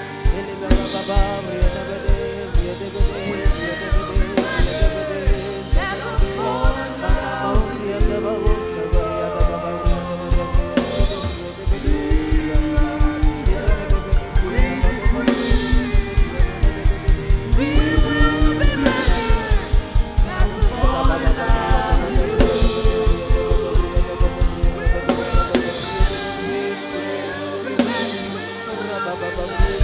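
Worship band music: a drum kit keeping a steady kick-drum beat that quickens to a fast, even pulse about twelve seconds in, with a melody over it. The drums drop out near the end.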